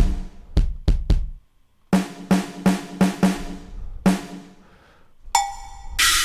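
Sampled drum sounds from a Ketron SD90 SoundFont drum set, triggered one at a time: three quick hits, a short pause, then a string of evenly spaced drum hits about three a second. Near the end comes a ringing metallic hit and then a bright crash.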